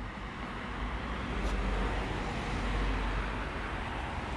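Harley-Davidson Sportster SuperLow 883's air-cooled V-twin running through its stock exhaust on the move, with a steady rush of wind and road noise. It gets a little louder over the first three seconds, then eases off slightly.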